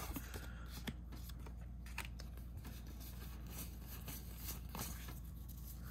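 Faint soft clicks and slides of trading cards being handled one after another, over a low steady hum.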